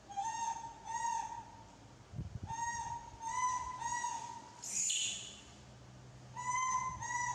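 A young animal crying with short, high, steady-pitched calls, about seven in all, mostly in pairs, with a brief hissy squeal in the middle.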